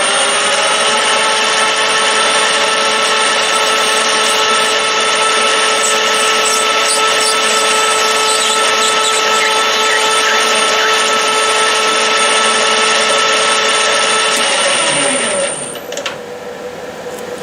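Lathe running at a steady speed with a steady whine while a parting tool cuts through half-inch nylon rod. Near the end the motor is switched off and winds down, its pitch falling away.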